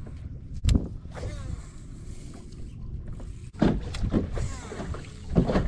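Baitcasting reel being cast and worked: a few falling whirs from the spool, plus short clicks and knocks of the reel and rod. Under it runs a steady low rumble.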